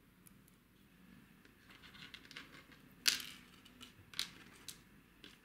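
Small parts and tools being handled by hand during assembly of a mini RC car: light rustling, then a few sharp clicks, the loudest about three seconds in and another a second later.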